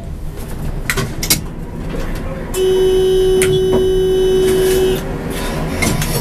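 Tram's door-closing warning tone: one steady electronic tone that starts about two and a half seconds in, holds for a little over two seconds and cuts off, signalling that the doors are closing before departure. Before it come a few sharp clicks, over the low hum of the tram cab at the stop.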